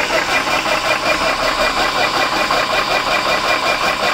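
Portable high-pressure PCP compressor running under load, its pump working in a fast, even pulse with the cooling fan going, as it fills a PCP air rifle's reservoir. Quite loud.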